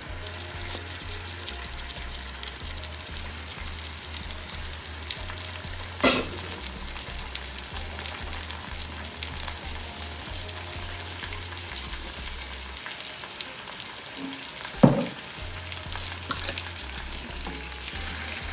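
Marinated chicken sizzling and crackling in hot ghee in a non-stick pan as it is stirred and fried, with two sharp knocks of the spoon against the pan, about six seconds in and again near the fifteen-second mark.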